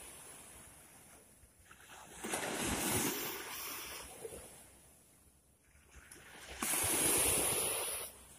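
Sea waves washing against a seawall in two surges that build and fade. The second surge is the louder and breaks off sharply near the end.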